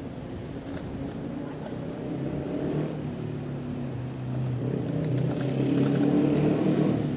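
Motor vehicle engine running with a steady low hum, growing louder from about halfway through.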